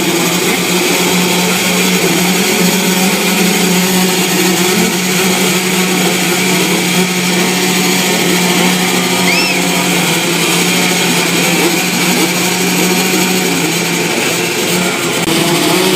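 Motocross motorcycle engines running hard: a loud, steady drone that holds one pitch and eases off about fourteen seconds in, with a short high chirp about nine seconds in.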